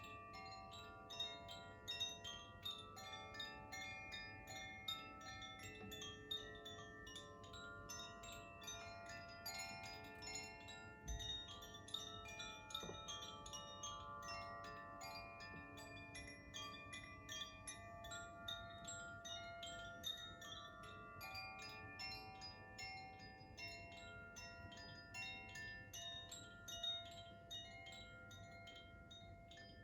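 Koshi chimes being played by hand: many tuned metal rods struck by an inner clapper in quick, irregular succession, their notes ringing on and overlapping. One brief low thud about eleven seconds in.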